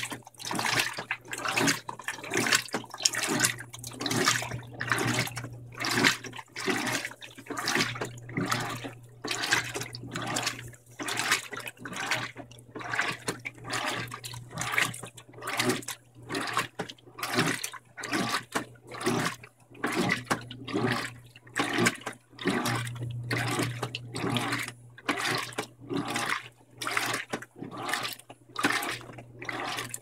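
Electrolux LDD16 16 kg top-load washing machine agitating a load at medium water level: water and clothes slosh in rhythmic surges, roughly two a second, over a steady low motor hum.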